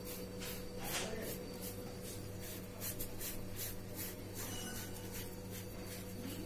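Boiled potato rubbed over a handheld metal grater into a steel bowl: faint, rhythmic scraping strokes, about three a second.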